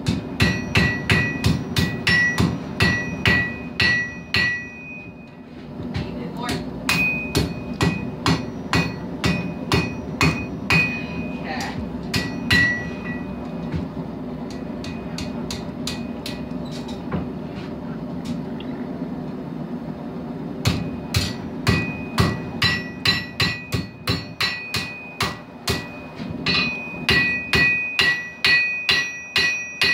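Hand hammer forging hot steel on an anvil, in runs of quick blows at about two to three a second, each strike ringing. The blows are duller and quieter for a few seconds in the middle, then come thick and fast again near the end.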